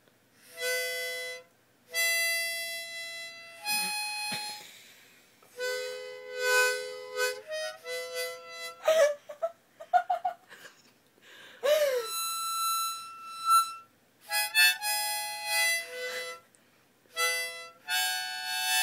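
Harmonica played in short chords and notes with gaps between, including one long held note about two-thirds of the way through. A puppy cries out along with it a few times in the middle, in short sliding, rising and falling calls.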